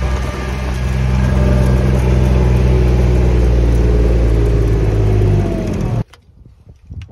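Kubota utility vehicle's engine running steadily while driving. Its pitch eases down slightly near the end, and the sound cuts off abruptly about six seconds in.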